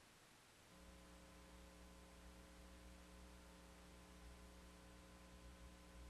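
Near silence with a faint, steady electrical mains hum that comes in about a second in.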